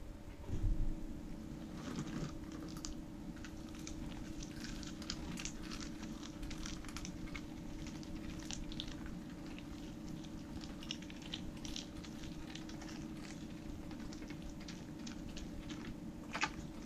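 A Pembroke Welsh corgi chewing a dog treat: a long run of irregular, crisp crunches over a steady low hum, with a thump about half a second in.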